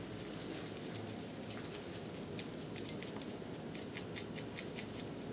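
Boxer puppy stirring in its crate as a hand pets it: soft rustling with a scatter of small clicks and taps.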